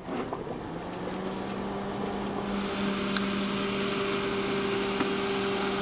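Home-made evaporative air cooler running: its Delta high-power computer fan and 12 V bilge pump give a steady electric hum with a rush of air, building up over the first couple of seconds and then holding. A single small click about three seconds in.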